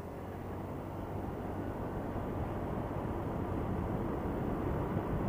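Motorcycle underway: a steady low engine hum under an even rushing noise, slowly getting louder.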